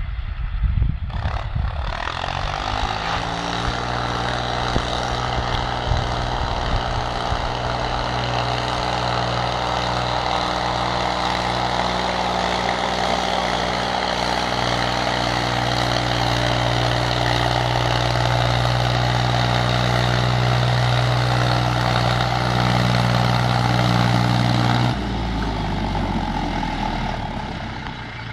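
International 453 tractor's four-cylinder diesel engine running steadily under load while pulling a plough, slowly getting louder as it comes closer. A few low thumps in the first seconds; about 25 seconds in, the engine note drops suddenly.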